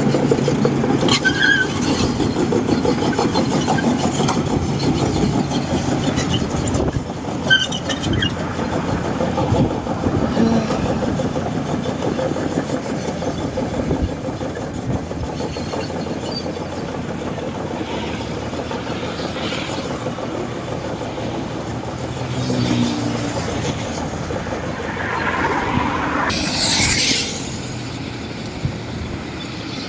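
Kobelco crawler excavator working, its diesel engine running steadily with high metallic squeals; the loudest squeal comes near the end.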